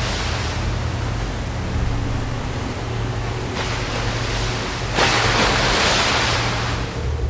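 Sea waves breaking against shore rocks and throwing up spray, with a steady wash of surf between them. One surge comes around the middle and the biggest, loudest crash comes about five seconds in.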